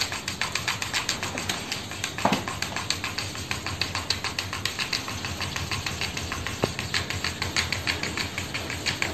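Rapid, even clicking like fast typing on a laptop keyboard, about eight clicks a second.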